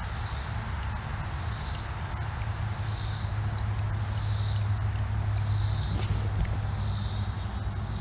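Insects calling in the creekside woods: a steady high-pitched trill with a second, pulsing call repeating about every second and a quarter, over a steady low rumble.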